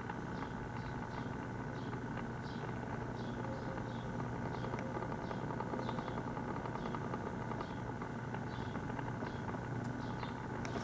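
Small motor of a rotating display stand running with a steady low hum and fine even ticking, with a faint squeaky chirp repeating about every two-thirds of a second.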